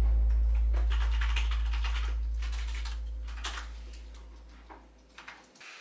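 Typing on a computer keyboard, a run of quick key clicks from about a second in, over a low droning music note that fades away and ends near the end.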